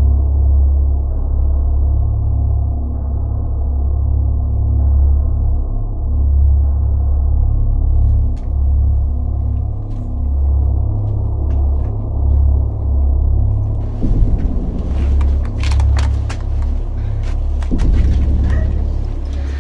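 Background music: a deep, droning, bass-heavy track. Sharp clicks come in about eight seconds in and grow thicker over the last few seconds.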